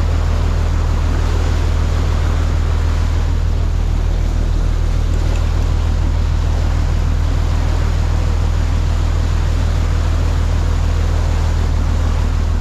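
Boat engines running steadily under way, a low even hum, with the rush of the churning wake and wind on the microphone.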